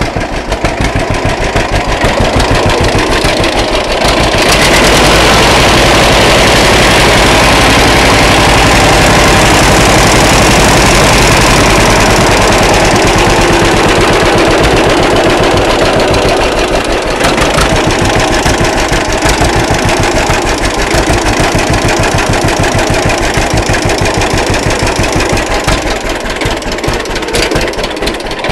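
1941 John Deere B tractor's two-cylinder engine running with a steady, even beat of firing pulses. It gets louder and denser for a stretch of about thirteen seconds in the middle, then settles back to the plainer beat.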